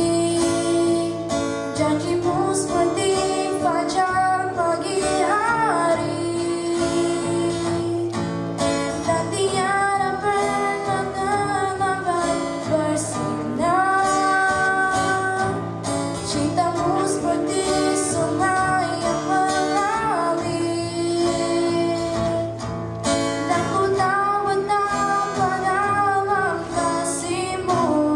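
A young girl singing a song solo into a handheld microphone, with acoustic guitar accompaniment; she holds long notes with bends in pitch.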